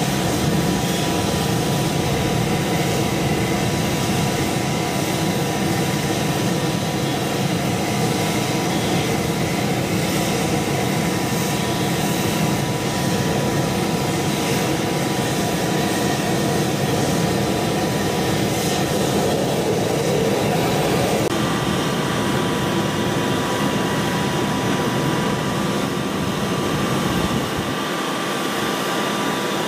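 Sikorsky Seahawk helicopter's twin turboshaft engines running on the ground, a steady turbine whine over a rumble. About twenty seconds in the tone shifts and a new, slightly higher whine comes in.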